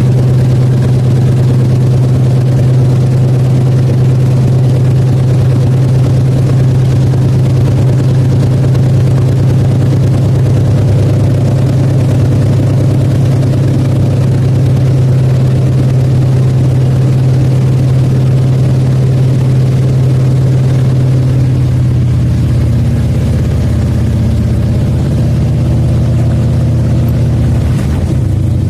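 An-2 biplane's nine-cylinder radial engine droning steadily, heard from inside the passenger cabin. Past the three-quarter mark its note drops lower.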